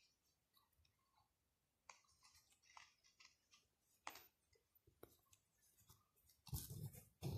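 Faint ticks and scratches of a sewing needle and thread being pulled through fabric in hand needlework, then a louder rubbing bump near the end as fingers brush against the microphone.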